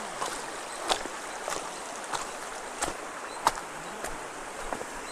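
Shallow stream flowing steadily over pebbles, with about six sharp clacks of pebbles underfoot, roughly one a second.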